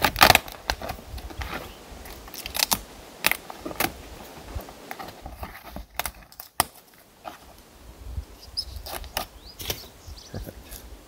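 Knife scoring and cutting the edge of a sheet of fresh birch bark, with the stiff bark crackling and rustling as it is handled: a string of short, sharp scrapes and snaps, the strongest right at the start.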